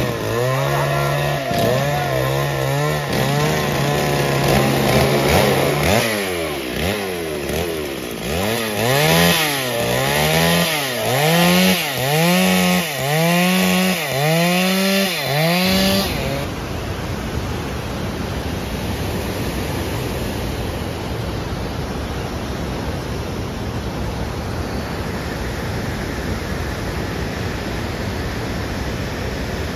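Two-stroke chainsaw ripping a log lengthwise into planks. It runs at a steady pitch at first, then revs up and down in a regular rise and fall about once a second. About halfway through it cuts off abruptly and a steady rushing noise takes over.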